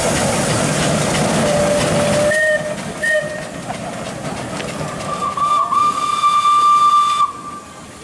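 Vintage steam roller venting steam with a loud hiss for the first couple of seconds, then giving two brief toots. Its steam whistle then blows one steady blast of about two seconds, which cuts off sharply shortly before the end.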